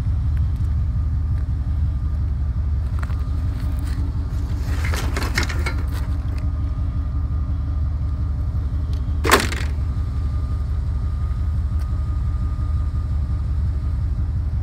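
Vehicle engine idling with a steady low rumble, with a few light knocks about five seconds in and one sharp crack about nine seconds in.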